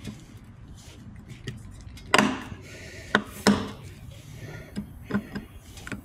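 A metal hand tool clicking and scraping against the head of a screw stuck in a motorcycle tire as the screw is worked loose. The sound is a handful of short, sharp clicks spread out over a few seconds, over a low background hum.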